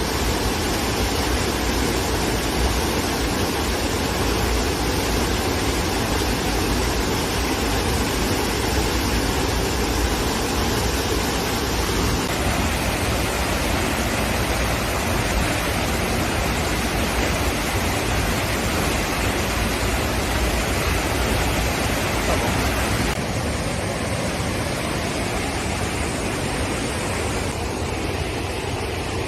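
Waterfall water rushing in a steady, loud roar, with its tone shifting abruptly twice.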